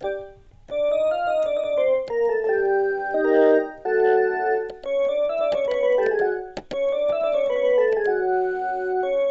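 M Studio MS41 mini electronic keyboard playing a melody of held notes over chords, with two short breaks about four and six and a half seconds in.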